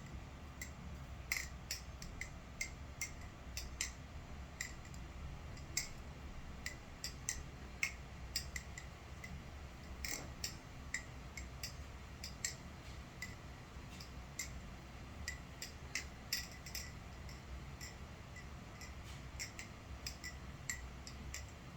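NRB SLight titanium butterfly knife (balisong) being flipped: a run of sharp, irregular metallic clicks, a few a second, as the handles swing around the pivots and strike closed and open.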